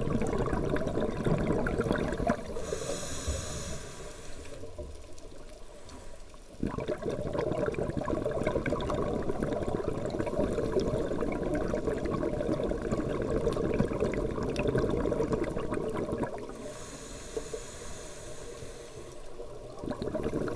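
Scuba regulator breathing underwater: long stretches of exhaled bubbles rushing and crackling, broken twice, about two and a half seconds in and again about sixteen seconds in, by the high hiss of an inhalation and a short lull before the bubbles start again.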